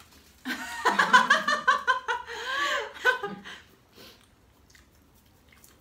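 Women laughing in quick, pulsing bursts for about three seconds, then quiet apart from a few faint clicks.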